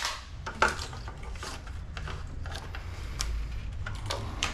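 Hands working on a mountain bike's cable housing and parts: scattered light clicks and clinks over a steady low hum.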